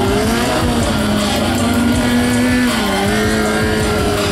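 Sportbike engine held at high revs with a steady pitch while the rear tire spins on asphalt in a smoking burnout. The revs dip briefly near the start and again about three seconds in.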